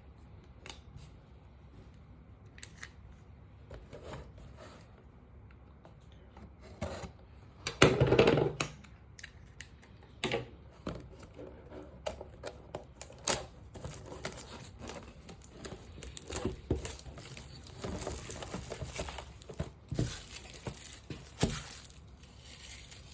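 A trading-card pack's wrapper being torn open, with one loud rip about eight seconds in, followed by scattered crinkles and clicks as the wrapper and cards are handled.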